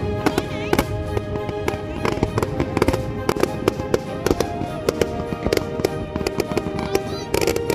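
Aerial fireworks bursting, with many sharp bangs and crackles and a dense flurry near the end, under steady background music.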